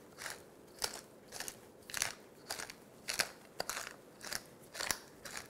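Wooden pepper mill grinding black pepper: a regular series of short gritty crunches, about two a second, one for each twist of the mill.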